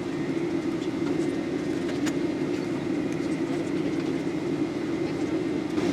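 Steady cabin noise of a jet airliner descending with its engines throttled back to low thrust: an even low hum and rush of air, with a few faint clicks.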